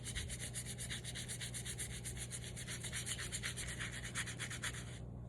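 Fast, even back-and-forth rubbing over a sticker on glass, about seven strokes a second, stopping abruptly near the end.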